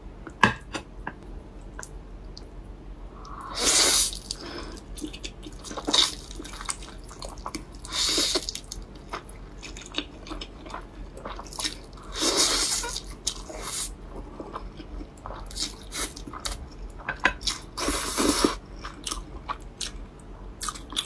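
A person slurping and chewing hot dry noodles (reganmian): several long wet slurps a few seconds apart, with chewing and small mouth clicks between.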